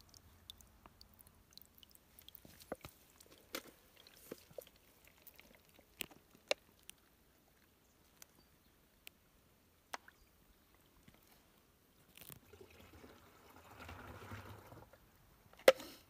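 Water from a small rock spring dripping and trickling faintly in scattered ticks, with a soft rushing sound for a couple of seconds near the end.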